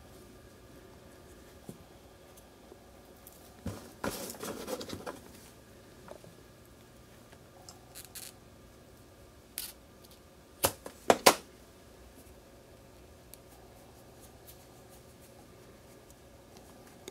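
Close-up handling noises while working with small scissors: a crackly rustle about four seconds in, a few light ticks, then three sharp snips in quick succession about eleven seconds in.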